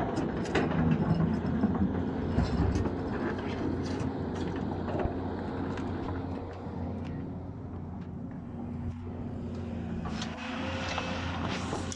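Volvo excavator's diesel engine running steadily under load, with scattered short knocks through it, louder in the first few seconds.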